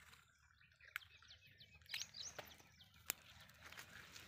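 Near silence with a few faint, short bird chirps about two seconds in and several sharp clicks, the loudest about three seconds in.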